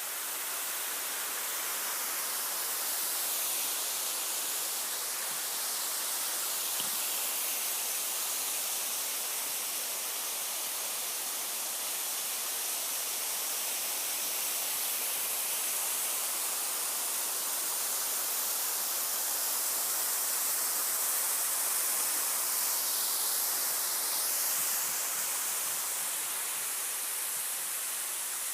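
Steady rush of flowing water, like a stream or small waterfall, an even hiss with little low rumble.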